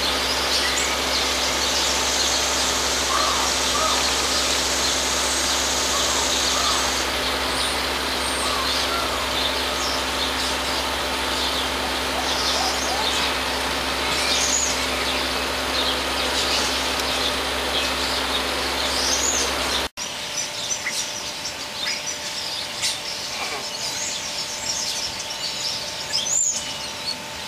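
Birds chirping again and again in short, high calls over steady outdoor background noise, with a low steady hum that stops abruptly about twenty seconds in.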